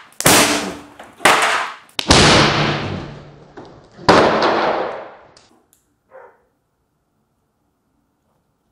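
Hairspray-fuelled PVC combustion potato cannon going off in a garage: a really loud bang with a long echoing decay, heard four times in quick succession, the last and longest about four seconds in. A brief faint sound follows around six seconds, then it goes quiet.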